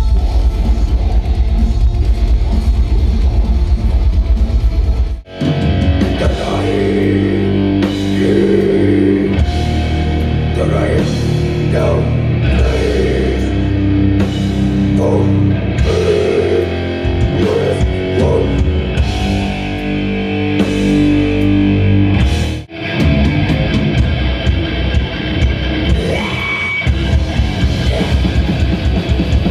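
Live heavy metal played loud through a festival PA: distorted electric guitars, bass, drums and vocals. The music breaks off sharply twice, about five seconds in and again past twenty-two seconds, jumping to another stretch of the set.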